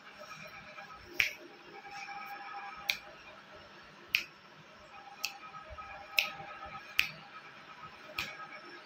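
A person snapping their fingers seven times at uneven intervals of about a second, each snap a sharp click over a faint steady background.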